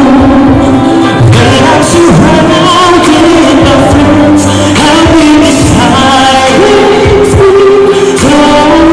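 A man singing a melody into a handheld microphone over backing pop music.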